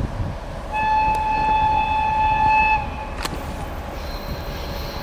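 ChME3 diesel shunting locomotive sounding one steady, high-pitched whistle for about two seconds as it approaches.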